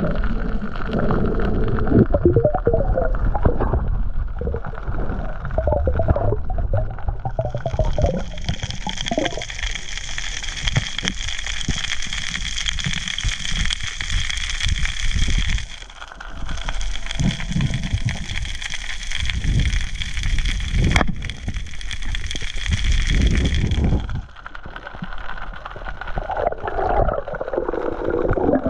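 Underwater sound of water rushing and gurgling around the camera as the diver swims, with a low rumble. From about 7 s to 24 s a steady higher hiss with faint steady tones runs over it, dipping briefly at about 16 s.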